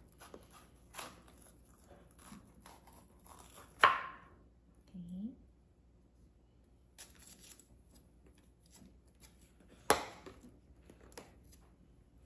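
Small spice jars handled and shaken over a bowl: light, rapid tapping and rattling, with two sharp clicks about four and ten seconds in.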